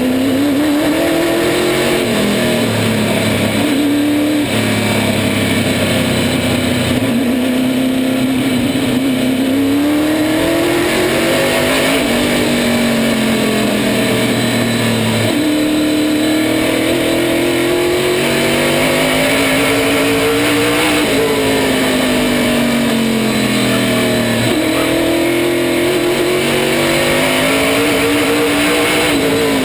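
Race car engine running at speed, heard from on board. The revs climb and fall again and again over a few seconds at a time, with a sharp drop in pitch several times, over a steady rushing noise.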